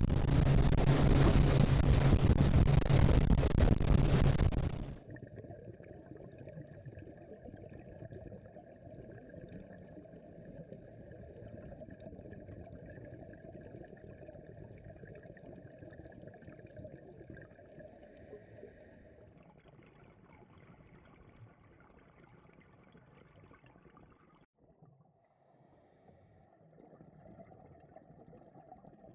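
A motorboat engine running with wind noise on the microphone, cutting off abruptly about five seconds in. What follows is a much quieter, muffled watery hiss with gurgling.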